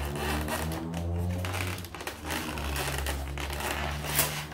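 Background music with steady low held notes, over crinkling and scraping as an airsoft rifle is lifted out of its styrofoam packaging insert. A sharp knock comes near the end.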